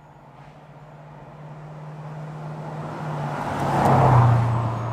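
1968 Dodge Charger R/T's 440 cubic-inch V8 approaching and driving past. The engine note grows steadily louder, peaks as the car goes by about four seconds in, then drops slightly in pitch as it pulls away.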